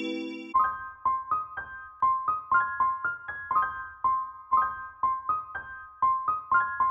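Background music: a light keyboard melody of short, high notes, about two to three a second, each dying away quickly. A held chord fades out in the first half second.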